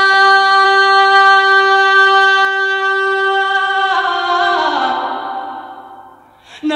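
A single singing voice, unaccompanied, holds one long high note for about four seconds, then slides downward and fades away.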